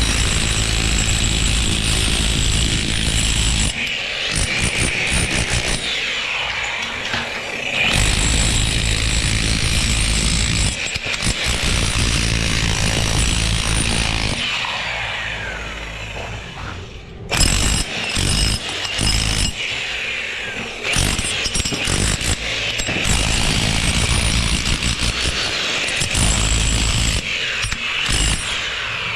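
Loud power-tool and construction machinery noise, running steadily and changing abruptly several times, with one sharp knock partway through.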